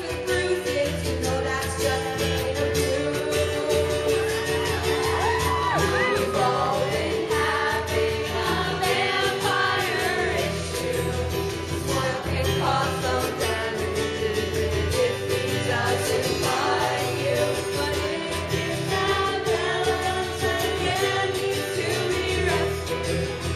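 Live song: a woman singing into a microphone while strumming a ukulele, the melody bending through long held notes over the steady strummed accompaniment.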